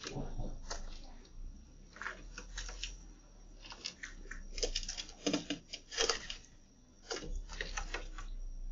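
Irregular sharp taps and crunches of birds pecking seed and corn off a hard balcony ledge, over a faint steady hum.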